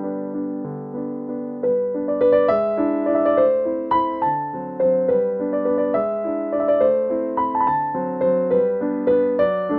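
Background piano music: a gentle melody of single notes over chords, which grows busier and a little louder about two seconds in.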